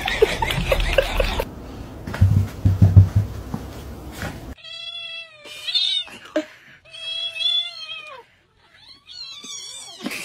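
Kittens mewing: four or five high, wavering calls in a row, starting about halfway through. Before them, muffled noise and a few low thumps.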